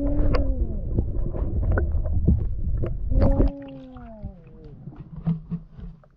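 Underwater sound picked up by a camera lowered into the sea: a heavy low rumble with scattered clicks and two long falling tones. The rumble stops about three and a half seconds in, leaving faint clicks and knocks.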